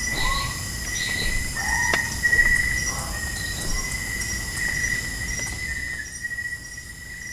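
Evening chorus of insects trilling steadily, with a few short bird calls in the first three seconds.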